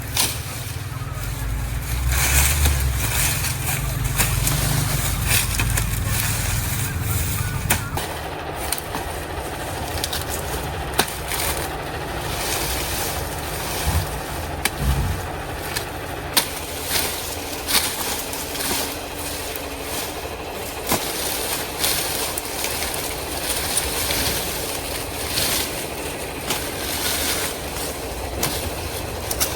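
Sugarcane being cut and handled: dry leaves and stalks rustling, with irregular sharp knocks of blade strikes on the cane every second or two. A low rumble sits under the first several seconds.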